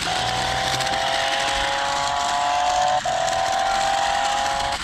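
Toy remote-control stunt car's electric drive motors and plastic gearboxes whining steadily as it turns on dirt, the pitch sagging slightly, with a brief catch about three seconds in.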